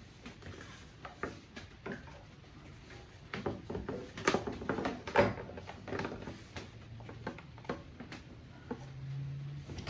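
Scattered clicks and knocks of small objects being handled, thickest and loudest around the middle, with a brief low hum near the end.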